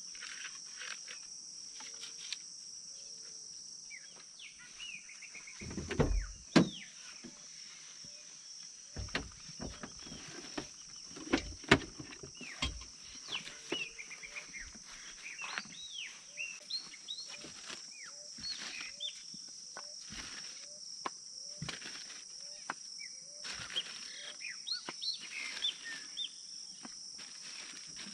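Birds chirping and singing over a steady high-pitched insect drone, with scattered knocks and thumps of gear being handled.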